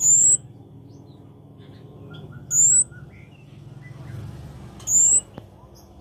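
A small songbird, the cabe-cabean (kemade), gives three loud, very high-pitched rising calls, each well under half a second long and about two and a half seconds apart. Fainter short chirps sound between the calls.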